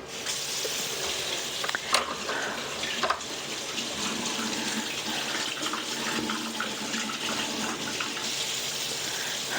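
Steady rush of running water, like a kitchen tap left on, with a couple of short knocks about two and three seconds in.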